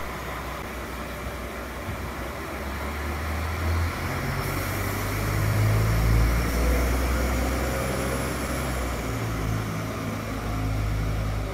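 Diesel engines of an erixx Alstom Coradia LINT railcar running up as it pulls out of the station, the low engine note stepping up about four seconds in and shifting again near the end.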